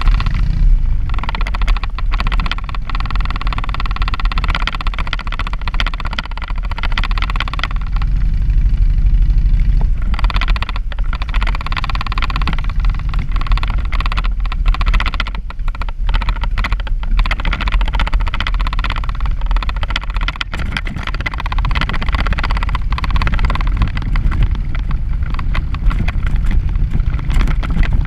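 Wind rumbling over the microphone of a moving, vehicle-mounted camera, over the steady whine of a small vehicle's motor. The whine fades out and comes back a few times.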